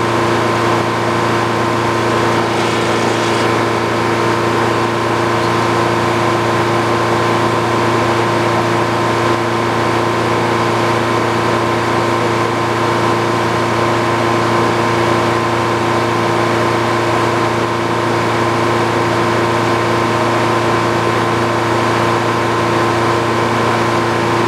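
Old Frick sawmill running steadily at an even pitch, its engine and machinery holding a constant hum with no change in load.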